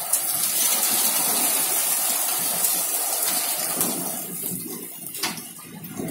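Hail and rain coming down in a dense, steady hiss that thins a little after about four seconds, with a few sharp clicks of hailstones striking.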